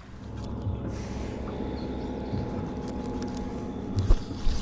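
Boat motor running steadily, with two sharp knocks near the end.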